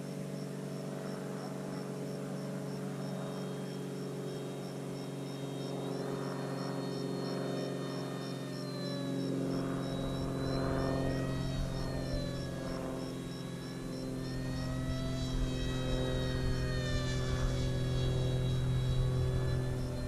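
Electric motor and propeller of an E-flite F-27 Evolution RC plane whining in flight, its pitch rising and falling several times as it passes and turns, over a steady low hum. A low rumble joins in about halfway through.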